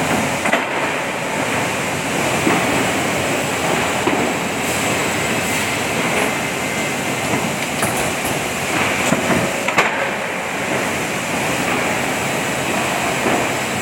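Plywood sanding machine running: a steady, loud rushing noise with a few sharp clicks now and then.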